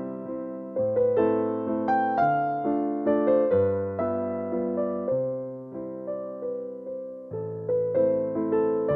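Background music played on a keyboard, electric-piano-like, its notes striking and fading one after another over lower held notes.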